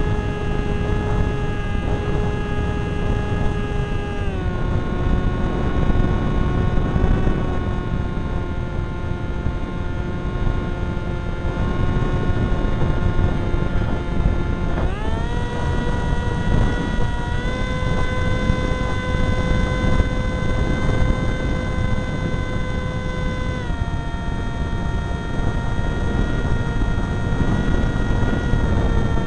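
Zagi v4 flying wing's motor and propeller heard from the onboard camera: a steady whine whose pitch drops about four seconds in, rises sharply with throttle about fifteen seconds in, and falls again near twenty-four seconds. Wind rushes on the microphone underneath.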